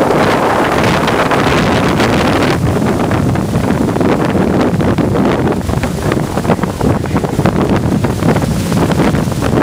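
Loud wind buffeting the microphone over the steady roar of Niagara Falls and its churning water, heard from the open deck of a tour boat in the spray.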